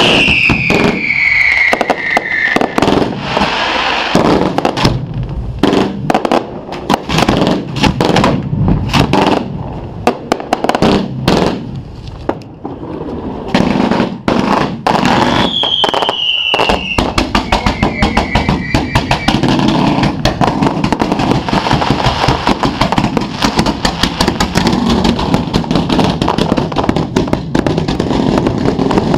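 Fireworks display heard from right beside the firing racks: a continuous run of launch bangs and bursts, with a falling whistle at the start and again about halfway. In the second half the shots come faster and denser, close to a crackling string.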